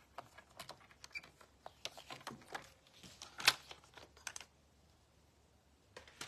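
Light scattered clicks and taps of card stock and a paper trimmer being handled on a desk, with one sharper knock about three and a half seconds in.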